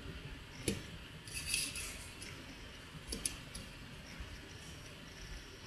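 Soldering iron tip working tinned tabbing wire along a solar cell's busbar: light metallic ticks and a short scraping hiss. There is a click just under a second in, a brief scrape soon after, and a few more ticks around three seconds in.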